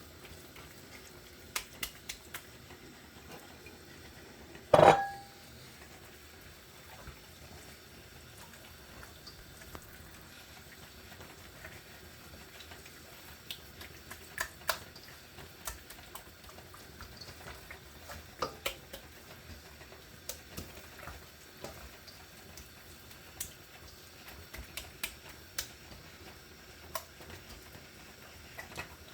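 Kitchen dishes and utensils being handled: scattered light clicks and taps, with one louder clink about five seconds in that rings briefly.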